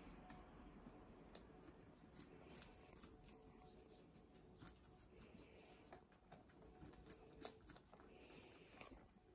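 Guinea pigs chewing raw carrot and lettuce: faint, irregular crisp crunching clicks.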